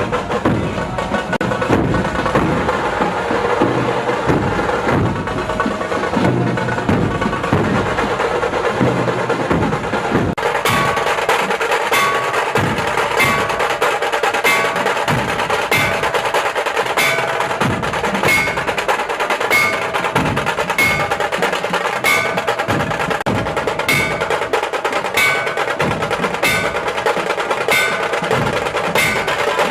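Percussion-led music with bell-like chimes. About ten seconds in, dense low drumming gives way to a steady beat of sharp clicks and short ringing notes.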